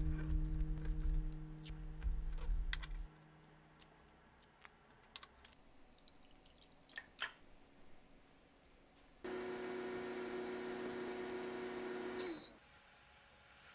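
Background music ends about three seconds in, followed by a few light clicks. Near the end a small appliance hums steadily for about three seconds and stops with a short, high beep.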